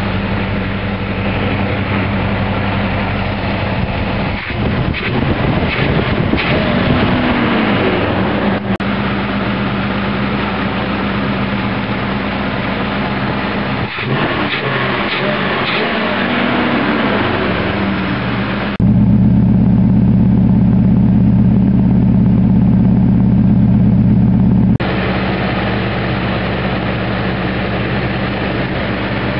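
A 308 V8 engine running smoothly at idle after a misfire was cured by putting the spark plug leads back on the right plugs. It blips up slightly twice and gets louder for about six seconds after the middle.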